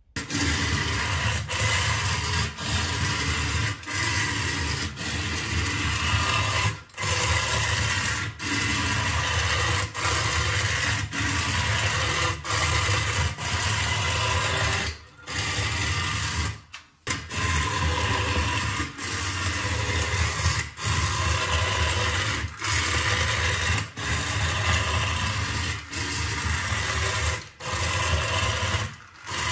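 Bandai Hino Contessa tin toy car's battery-powered electric motor and gears whirring as it drives along, briefly cutting out every second or two.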